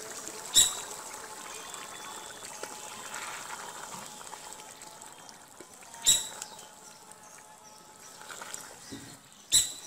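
A wooden spatula stirring a simmering fish and bottle gourd curry in a metal wok, with a steady wet bubbling and slosh. Three times, about half a second in, around six seconds in and near the end, it knocks sharply against the wok with a brief metallic ring.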